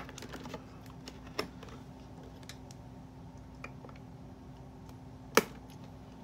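Scattered clicks and taps of plastic toy packaging being handled and cut to free small figures, with one sharp, louder click about five seconds in. A faint steady hum underneath.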